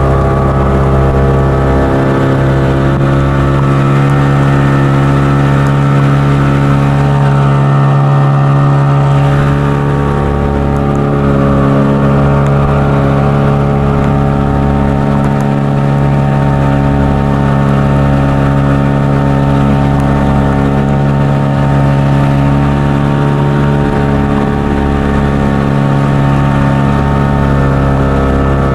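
Boat engine running steadily at constant speed with the boat underway.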